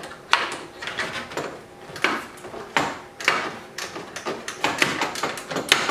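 Hand ratchet clicking in short repeated strokes as a bolt is snugged up.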